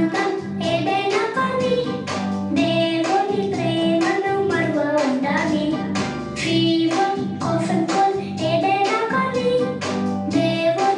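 Children singing a Telugu action song together over a backing track with a steady beat.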